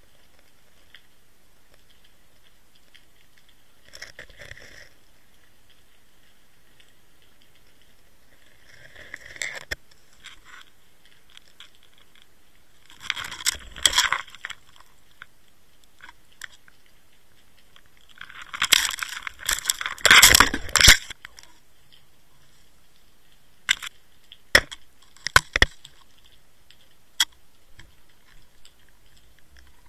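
An inline underwater camera on a fishing rig scraping and knocking against the gravel and stone seabed as the rig is moved, heard as irregular bursts of scraping, the loudest about two-thirds through, followed by a few sharp clicks.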